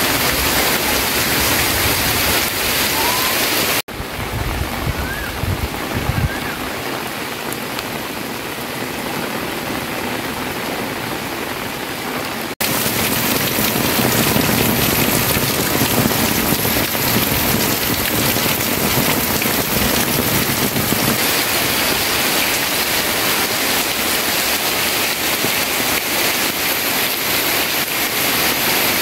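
Heavy rain falling steadily, a dense even hiss of drops hitting water and leaves. About four seconds in it cuts abruptly to a softer, duller stretch with a few low thuds, then jumps back to full strength about twelve seconds in.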